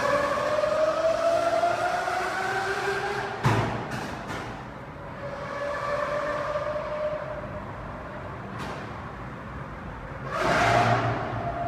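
Lamborghini engine accelerating, its pitch climbing in two pulls. A sudden loud burst comes about three and a half seconds in, and another near the end.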